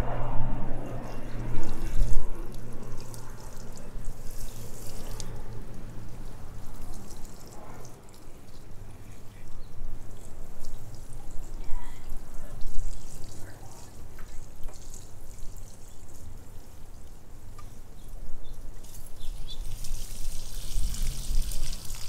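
Water sprinkling from the rose of a plastic watering can onto soil and leafy plants, a soft hiss that swells a couple of times.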